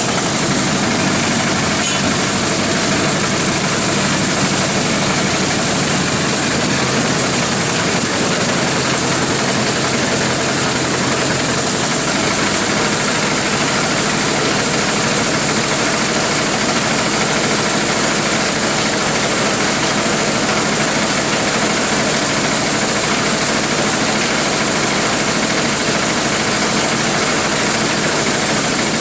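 Large engine-driven corn sheller running steadily: a loud, even machine drone with a constant high-pitched whine over it, the low rumble growing somewhat fuller about twelve seconds in.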